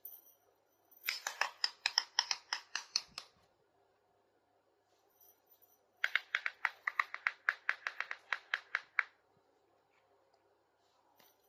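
Two runs of rapid, evenly spaced clicking, about seven or eight clicks a second, from a plastic toy mini kitchen set being handled and unboxed. Each run lasts two to three seconds, with a pause between them.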